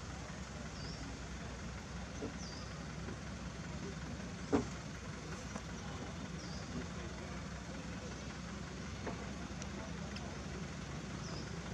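Steady outdoor background noise with a continuous low hum, a few faint short high chirps, and one sharp knock about four and a half seconds in.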